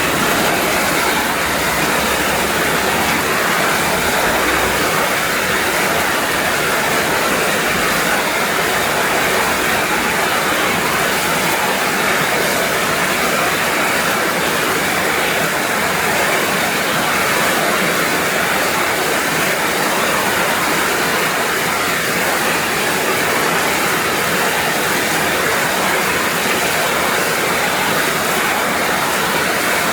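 Heavy rain falling steadily, an even hiss with no breaks and no thunder.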